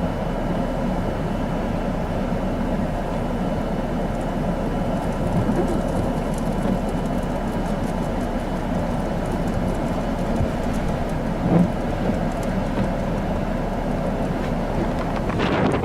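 Blizzard wind blowing in a steady low rush, with gusts buffeting the microphone near the end.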